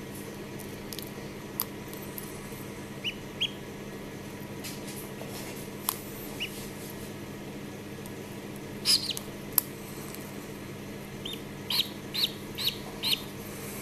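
Khaki Campbell duckling peeping from inside its egg while hatching: short high peeps scattered through, with a quick run of four or five near the end. A few small clicks of eggshell being picked away by fingers, over a steady low hum.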